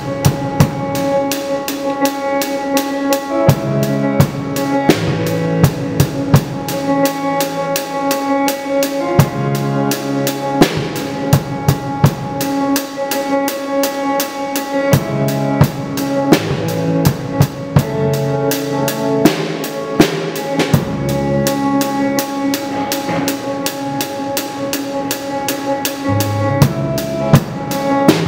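Live band music: a drum kit played busily with frequent hits, over held keyboard or synth chords and low notes that change every few seconds.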